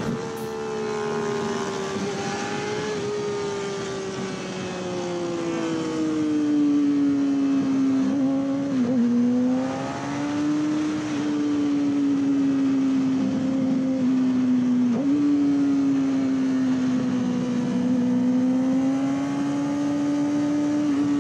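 Yamaha YZF-R6 sport bike's inline-four engine running at high revs as the bike is ridden hard through a series of bends, with wind rushing past. The engine pitch eases down over the first several seconds, then holds, with brief dips about nine and fifteen seconds in.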